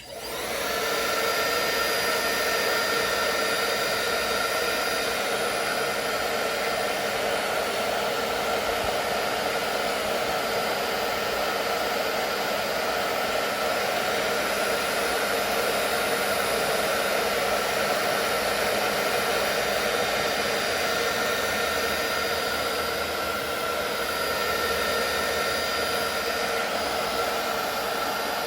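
Handheld hairdryer switched on and blowing steadily, a continuous airy whoosh with a faint motor whine, aimed at a shoe's fogged air bubble to heat it.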